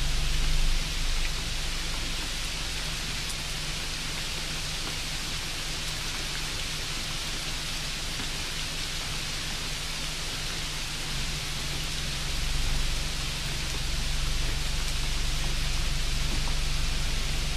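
Steady hissing noise with a low hum under it.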